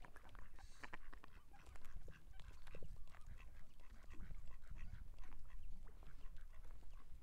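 Mallard ducks quacking in short, scattered calls over a steady low rumble.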